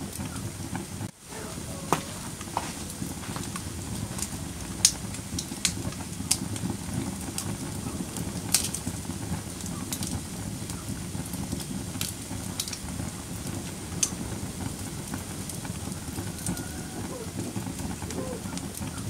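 Wood fire burning in a fireplace: a steady low rumble of flames with sharp crackles and pops every second or two. The sound drops out briefly about a second in.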